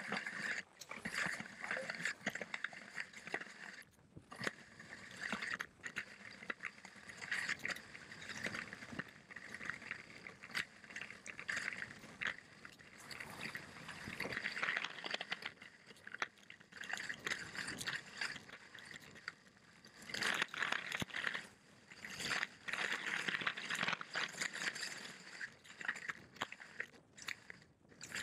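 Narrow cross-country skis hissing and scraping over snow during a fast descent, picked up close to the skis. The noise surges unevenly, with scattered crunches and clicks.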